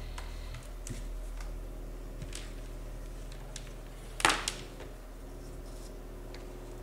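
SKAR SDR 12-inch subwoofer playing a steady low sine-wave test tone in free air, a hum with overtones above it. Faint clicks come and go, and a single sharp knock sounds a little past the middle.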